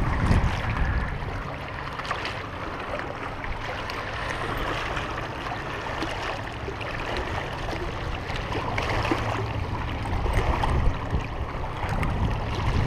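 Small waves lapping and splashing against a rocky shoreline, with wind rumbling on the microphone.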